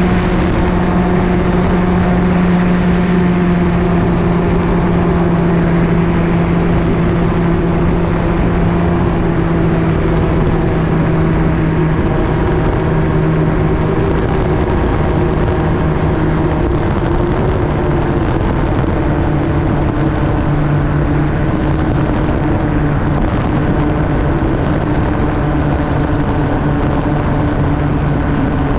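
MTOsport gyroplane's engine and pusher propeller running steadily in flight, with wind rushing past the open cockpit. The engine note eases slightly lower about halfway through.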